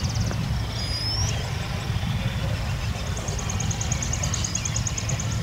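Wind buffeting the microphone, a steady low rumble. A short rising whistle sounds about a second in, and a high, rapid trill comes in about three seconds in.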